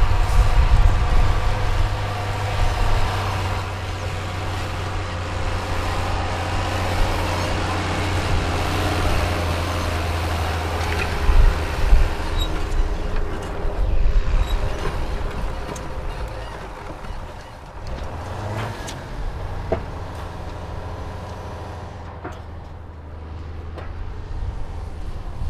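Farm tractor pulling a disc harrow, its engine running close by with a steady low drone. It turns quieter about two-thirds of the way through.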